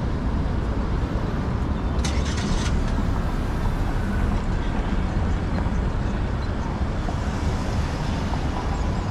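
Downtown street traffic: a steady low rumble of passing vehicles, with a brief hiss about two seconds in.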